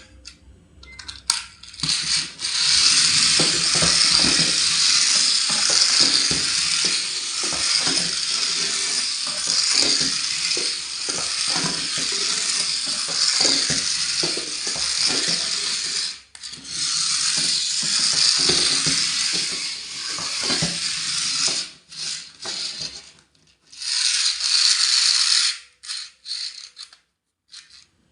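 Packaging being handled and opened: steady crinkling with many small clicks and rattles, breaking off briefly partway through, then a last short burst before it dies down.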